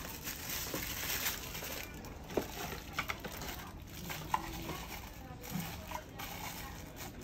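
Small hard objects being handled: scattered light clicks and clinks, about five, over a steady hiss, the kind made by handling watch boxes and packaging during unboxing.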